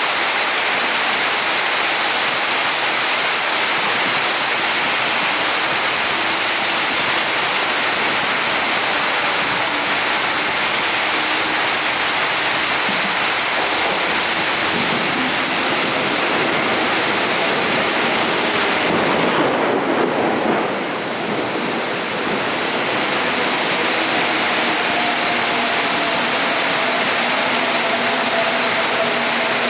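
Seoul Metro 4000-series electric train with GTO-VVVF traction inverters, running with a steady loud rush of wheel and running noise. A brief dip comes a little past two-thirds of the way through. Over the last few seconds a thin inverter whine slowly falls in pitch.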